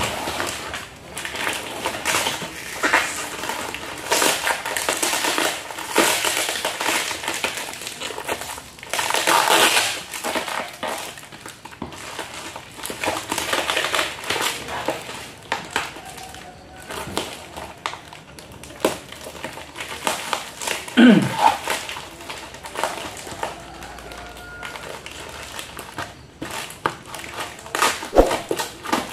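Plastic packaging wrap crinkling and rustling in irregular bursts as it is handled and cut open with scissors.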